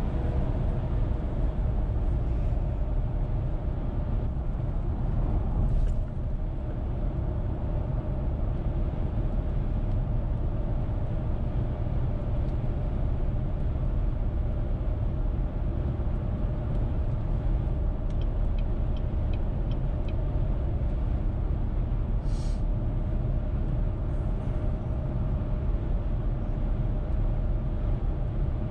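A car cruising at highway speed, heard from inside the cabin: a steady low rumble of tyres and engine with a faint steady hum over it. A short run of faint quick ticks comes about two-thirds of the way through.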